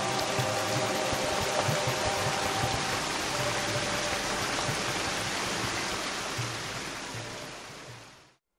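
Steady rushing of a small mountain stream running among snow-covered rocks, with faint background music underneath. Both fade out near the end.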